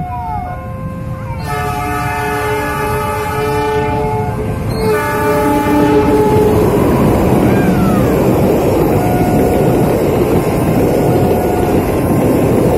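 Diesel locomotive's multi-tone horn blowing two long blasts, about a second and a half in and again about five seconds in. Then the locomotive and its passenger coaches pass close at speed, with a loud, steady rumble of wheels on rails.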